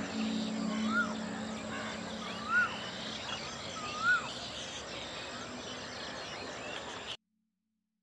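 Wild birds calling at dawn, many small chirps over a steady background, with one bird repeating a short rising-then-falling call about every one and a half seconds. The sound cuts off suddenly about seven seconds in.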